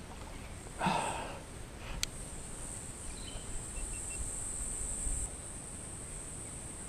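Steady high-pitched drone of insects, with a short rustling noise about a second in and a single sharp click about two seconds in.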